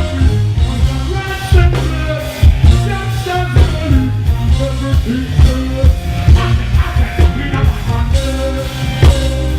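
Live reggae-dancehall music: a singer's voice over a heavy bass line and a steady drum beat.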